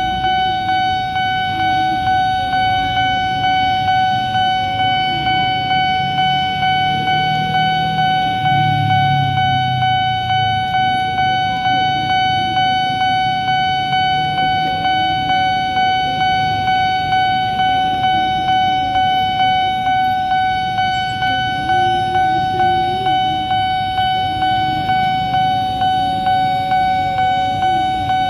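Railway level-crossing warning bell ringing in a steady, evenly repeating rhythm. Under it, the engines of cars and motorcycles queued at the closed crossing are running, briefly louder in the middle.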